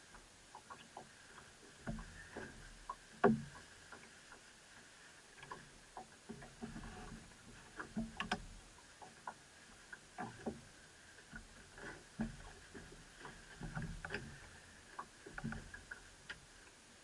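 Irregular knocks, clicks and low thuds on a small boat drifting on the water, from people moving about and handling fishing gear aboard.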